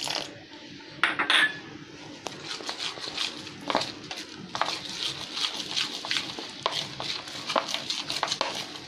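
Metal spoon stirring thick besan (gram-flour) batter in a plate, scraping and clinking against the dish in quick repeated strokes, with louder clinks about a second in.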